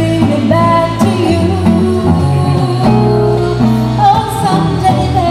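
A woman singing a pop song, accompanied by a Gitane DG330 gypsy-jazz acoustic guitar, with held sung notes that change every second or so.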